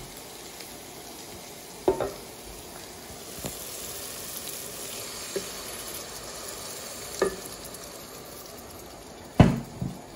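Sliced onions sizzling steadily in a nonstick pot, with water added so they don't burn. A few sharp knocks against the pot punctuate the hiss, the loudest near the end.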